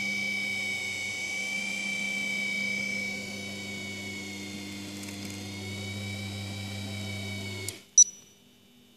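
A Human Touch HT-270 massage chair's electric motor runs with a steady high whine over a low hum, then stops abruptly near the end. A single short, sharp high blip follows just after.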